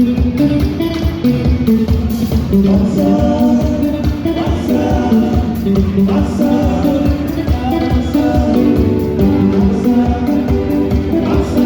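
Upbeat song with singing over a steady beat.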